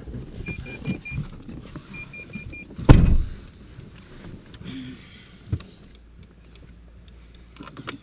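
A car's dashboard warning chime beeping in quick runs of four or five, then a heavy thump about three seconds in, the loudest sound. After that the small car's engine rumbles low inside the cabin.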